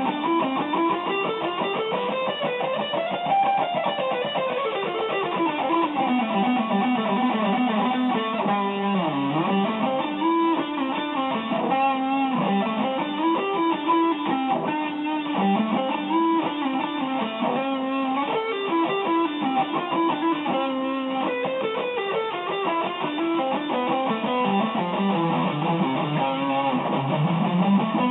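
Electric guitar playing a shred-style study: fast single-note runs that climb and fall in pitch without a break.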